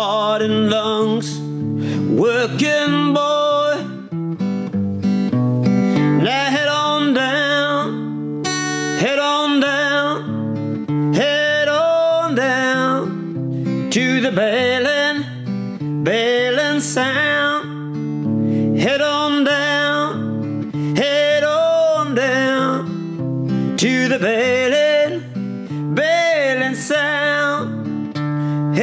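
Background music: a song with guitar and a singing voice, its melody coming in phrases about every two seconds over steady low notes.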